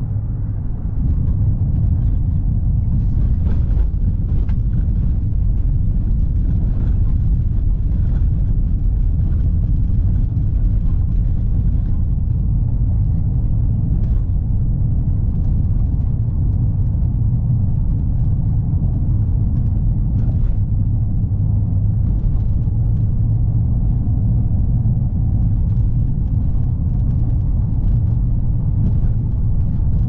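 2019 Ford Kuga petrol SUV driving, heard inside the cabin: a steady low rumble of engine and tyre noise, growing louder about a second in, with a few faint clicks.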